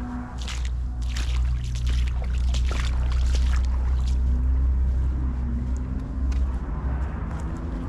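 Deep, steady rumble of a truck or car traffic passing on a nearby road, fading after about five seconds, with a string of short sharp scraping noises in the first half.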